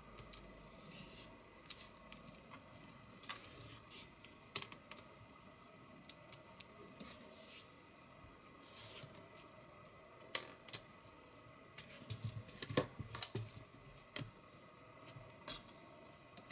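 Scattered light clicks and taps of hard plastic as a Poqet PC palmtop computer's case is screwed up, handled and opened out, with a small cluster of clicks around twelve to fourteen seconds in.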